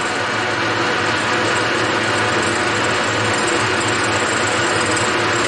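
Metal lathe running under power with its open change-gear train turning, the gears meshing in a steady mechanical whir over a low motor hum. This is a trial run of the reconfigured gear train with an extra idler gear fitted, and the gears mesh properly.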